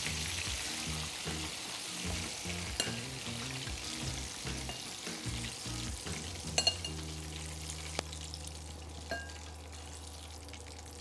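Breaded chicken deep-frying in hot oil in a kadai, with a steady sizzle and a few light clinks of a metal slotted spoon as the pieces are lifted out.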